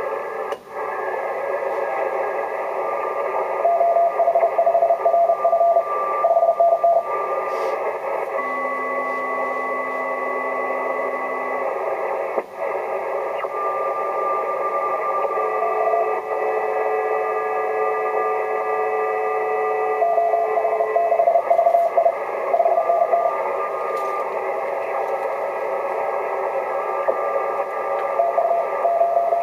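Morse code (CW) signals heard through the receiver of a Yaesu FT-950 HF transceiver tuned to 28.035 MHz on the 10-metre band, over steady band hiss. Several signals sound at different pitches. The loudest is a keyed mid-pitched tone that comes in about 4 seconds in, again about 20 seconds in and near the end; other tones are held steady in between.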